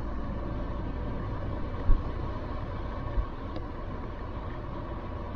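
Land Rover Defender driving at steady speed: even engine and road noise, with two brief low thumps about two and three seconds in.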